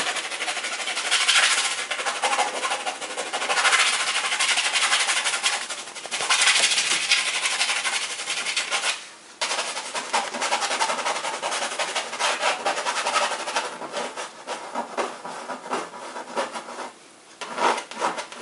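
Pencil scratching rapidly back and forth on a canvas in fast short shading strokes, coming in louder spells of a second or two, with a brief pause about nine seconds in.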